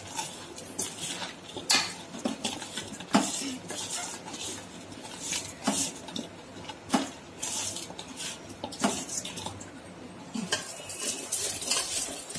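Chopped bilimbi pieces being tossed by hand with rock salt in a stainless steel bowl, giving irregular clinks and knocks against the metal.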